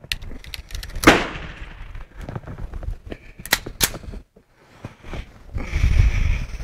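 A single shot from a Star BM 9mm Luger pistol about a second in, ringing out afterwards. Two fainter sharp cracks follow a couple of seconds later, and a low rumble rises near the end.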